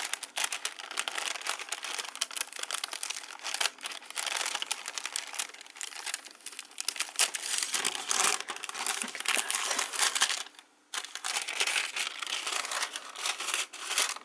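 Tissue paper crinkling and rustling as it is folded back and unwrapped by hand, in irregular crackly bursts with one short pause about two-thirds of the way through.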